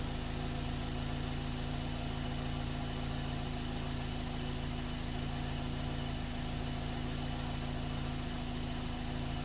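First-generation Scion xB's 1.5-litre four-cylinder engine idling steadily, an even hum that does not change.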